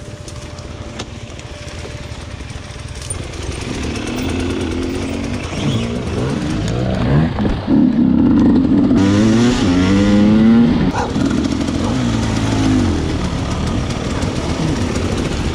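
Enduro dirt bike engine revving up and down again and again, its pitch rising and falling, getting louder from about four seconds in and loudest around the middle.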